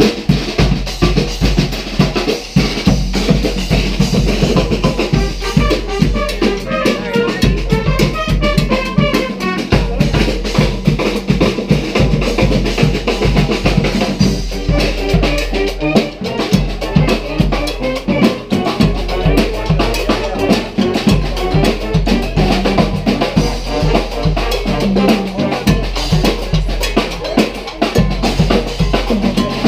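Marching band playing live, led by its drum section: bass drum and snare with rim shots in a steady, driving beat, and melodic instrument lines coming in over the drums at times.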